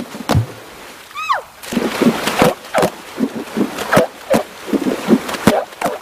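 Vanuatu water drumming: women slap and cup the sea surface with their hands, making a fast run of hollow, pitched plops and splashes, several strokes a second, from about a second and a half in. A brief falling whistle sounds just before the drumming starts.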